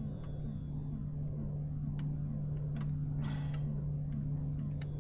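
Steady low electronic hum of a spaceship's background sound effect, with a short falling blip repeating a little over twice a second. A few faint clicks and a brief rustle come just past the middle.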